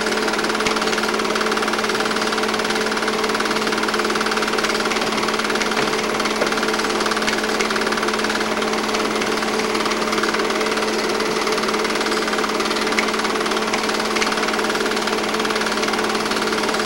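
8mm film projector running: a steady, fast mechanical rattle from the film-advance mechanism over a constant low hum.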